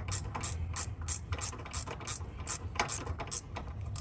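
An 8 mm ratcheting wrench clicking in quick, even strokes, about three to four clicks a second, as it is worked back and forth to loosen an ignition-coil mounting bolt.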